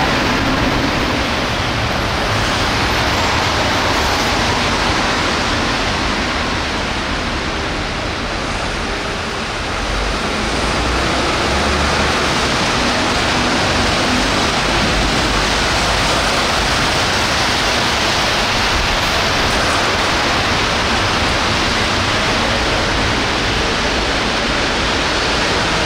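Steady rushing street noise of traffic on a wet road, with no sirens sounding.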